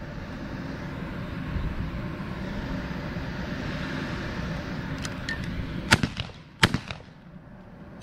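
Two 20-gauge shotgun shots fired at starlings in quick succession, about two-thirds of a second apart, a few seconds in; the first is the louder.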